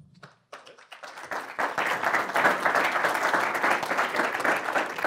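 Audience applauding, starting about half a second in, swelling to a full round of clapping and thinning out near the end.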